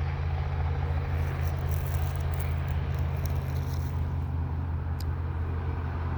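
An engine running with a steady low hum, with light rustling and a click near the end.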